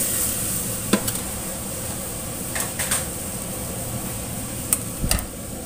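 Wok of chicken, potatoes and carrots cooking in just-added water, giving a low steady hiss, with a few light clicks.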